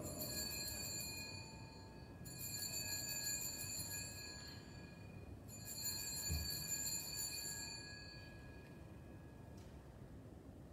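Altar bells rung three times at the elevation of the chalice after the consecration, each ring a cluster of high, clear tones that fades over two to three seconds.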